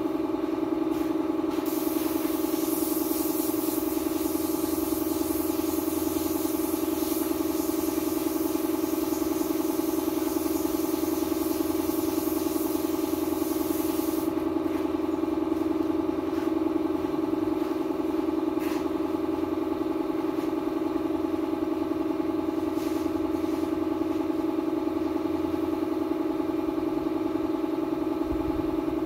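Air compressor running steadily with an even motor hum. Over it comes the hiss of a paint spray gun, which stops abruptly about fourteen seconds in.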